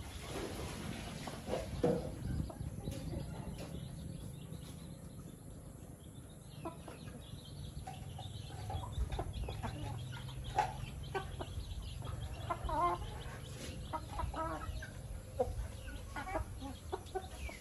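A flock of chickens clucking softly while foraging. The short clucks come now and then at first and grow more frequent after the first few seconds.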